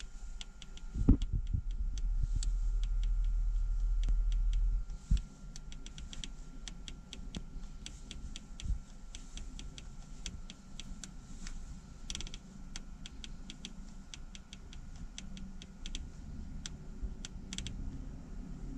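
Detented FMS knob on a Garmin G1000 display clicking as it is turned, in quick irregular runs of clicks, while a waypoint name is spelled out letter by letter. A low rumble runs for a few seconds near the start.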